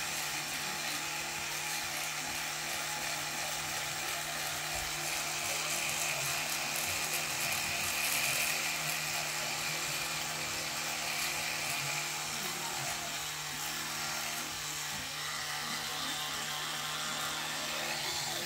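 Electric toothbrush running steadily in the mouth: a constant motor buzz with the brush head scrubbing against the teeth.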